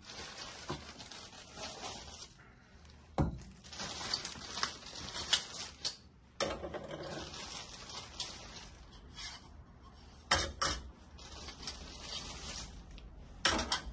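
Handling noise: rustling with several sharp knocks and clicks, like parts and packaging being moved around while a machine is unpacked and put together.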